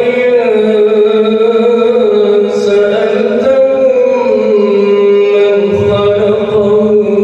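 An imam's solo male voice chanting in Arabic in long, drawn-out melodic phrases, the notes held and gently shifting in pitch, with no break.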